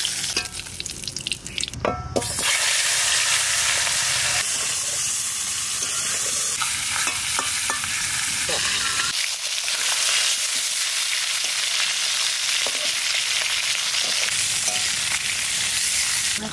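Pieces of magur (walking catfish) sizzling steadily as they fry in hot mustard oil in a metal wok. A metal spatula clicks against the pan a few times as the pieces are turned and lifted out.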